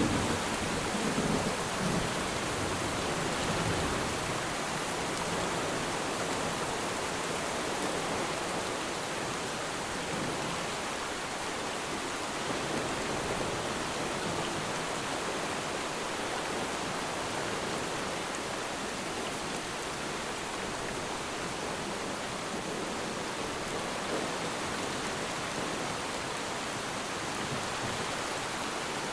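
Steady rain falling on water, a continuous even hiss, with a low rumble of distant thunder in the first few seconds that fades away.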